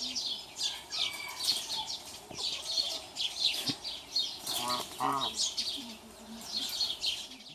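Steady busy chirping of birds, many quick high chirps one after another, with a couple of short lower clucks from a chicken a little before five seconds in and at about five seconds.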